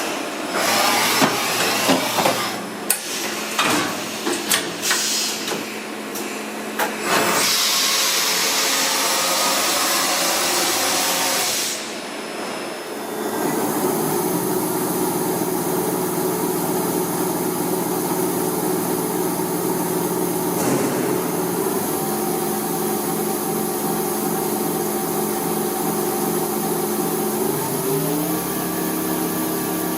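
Mikron VC 1000 CNC vertical machining centre running. For the first several seconds there is irregular clattering and knocking, then a steady hiss. After a short dip, a steady whine with several tones sets in, stepping in pitch about two-thirds of the way in and again near the end.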